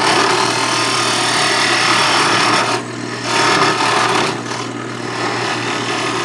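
Craftsman 12-inch wood lathe running with a steady motor hum while a hand-held turning tool scrapes across the end of the spinning wooden pipe blank, trimming it square. The cutting noise breaks off briefly about three seconds in, then resumes.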